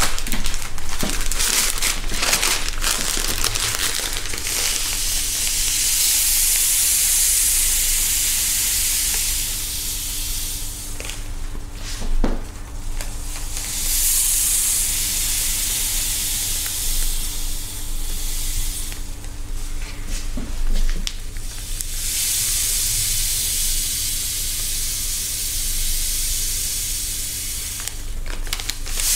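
Sand being poured from a plastic bag into cups: a steady hiss, three separate pours of several seconds each with short pauses between.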